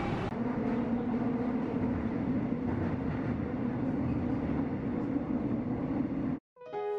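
Subway train running, heard from inside the car: a steady rumble with a low hum. It cuts off suddenly about six seconds in, and piano music begins just after.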